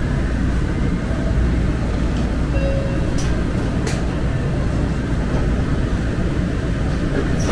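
Muni Metro light rail train running, heard from inside the car: a steady low rumble with two sharp clicks about three and four seconds in.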